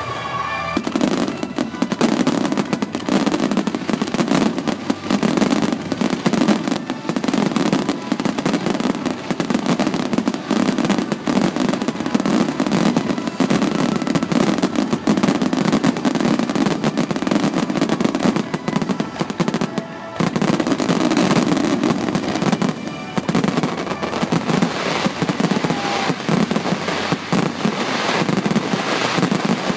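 Jumbo star mine fireworks barrage: shells bursting in a dense, unbroken stream of bangs and crackles, easing off briefly about two-thirds of the way through before building again.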